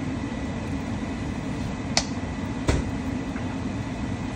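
A steady low mechanical hum, with two short sharp clicks about two seconds in and again a moment later.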